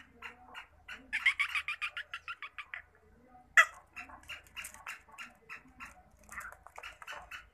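Black francolin (black partridge) calling in a rapid run of short chirps, about seven a second, pausing briefly before the middle. A single sharp click about halfway through is the loudest sound.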